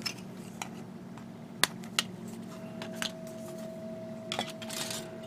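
Sharp plastic clicks and taps from plastic model kit parts being handled, about half a dozen spread through, over a faint steady hum.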